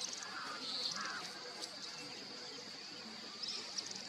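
Forest ambience: a steady high insect drone with several birds calling over it, short chirps and quick clicking trills, with a couple of lower calls about a second in.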